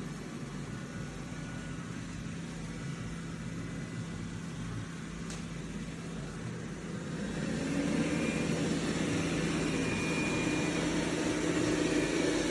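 Dreame robot vacuum-mop's motors running with a steady hum, growing louder about seven seconds in as a higher whine joins.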